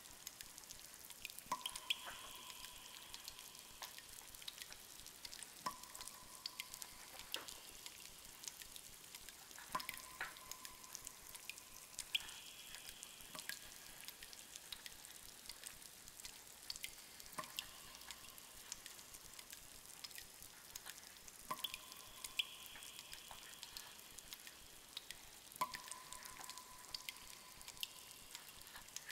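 Cave ambience recording: water dripping at irregular intervals, some drips ringing briefly in the cavern, over a faint steady hiss.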